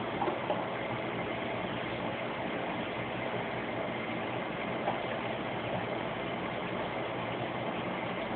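Reef aquarium pumps and filter running: a steady hum with an even hiss of moving water.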